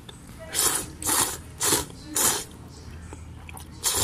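A person slurping udon noodles in short, sharp pulls: four slurps about half a second apart, then one more near the end.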